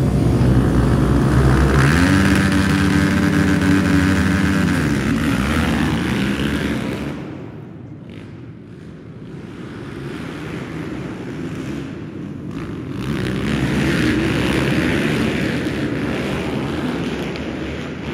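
A pack of pit bike engines revving at the start line, then held at high revs about two seconds in as the bikes launch together. The sound fades as they ride off and swells again past the middle as the pack comes back around.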